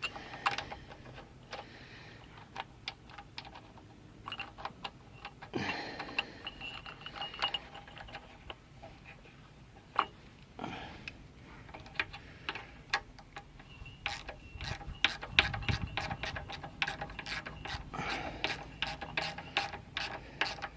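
Small hand tools and metal parts clicking and clinking as a go-kart engine's carburettor float bowl is refitted and fastened. The clicks are scattered at first, with a brief scrape about five seconds in, and come fast and dense in the last several seconds.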